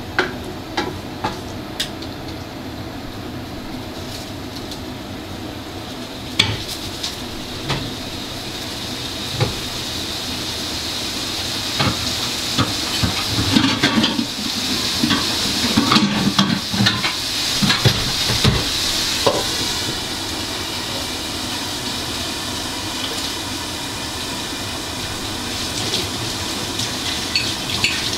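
Cooking in a pot or pan: scattered clinks and knocks of a utensil over a steady hiss that grows louder around the middle.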